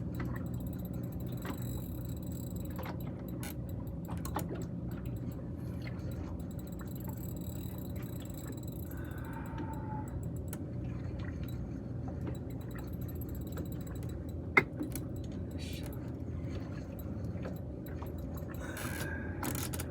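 Fishing reel winding in line on a hard-pulling fish, faint clicking over a steady low hum, with one sharp click about fifteen seconds in.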